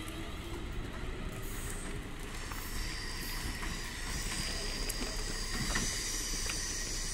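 ScotRail Class 380 electric multiple unit pulling away from the platform and moving off, with a steady running rumble and a thin high whine that comes in about a third of the way through.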